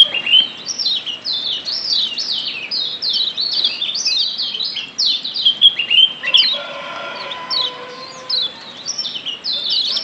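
Lombok yellow white-eye (kecial kuning) calling in a rapid, unbroken run of sharp, high, down-slurred 'ciak' chirps, several a second: the excited 'ciak joss' calling used as a stimulator recording to get other kecial singing.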